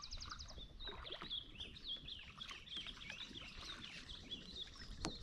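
Small birds chirping and twittering in quick short notes, with a fast trill right at the start; a low rumble runs underneath.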